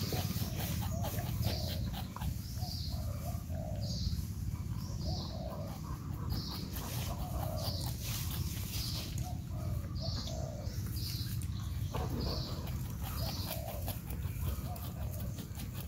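Porcupine eating fruit: a steady run of small crunching clicks. Short calls repeat about once a second over a steady low rumble.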